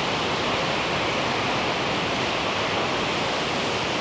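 Waterfall rushing: a steady, powerful noise of falling water that holds even throughout.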